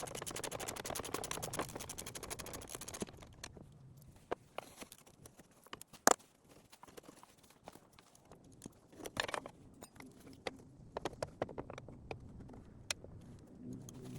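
Hand tools working on a skid steer's radiator and fittings: a rapid run of clicking for about the first three seconds, then scattered metal knocks and taps, the loudest a single sharp knock about six seconds in.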